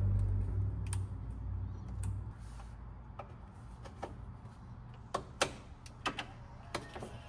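2022 Tesla Model X waking up after its first responder loop is reconnected: a low steady hum, loudest for the first couple of seconds, and a scatter of sharp clicks as the car's systems power back on.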